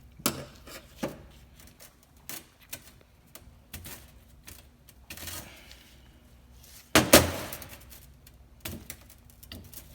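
Irregular clicks and knocks of differential clutch-pack plates and discs being handled and set down, with one louder clatter about seven seconds in.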